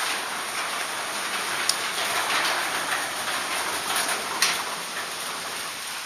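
Heavy rain falling steadily on a concrete driveway and lawn, a dense even hiss, with a couple of sharp clicks.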